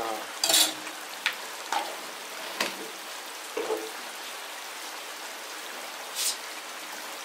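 Steady hiss of rain with a few scattered short knocks and clicks.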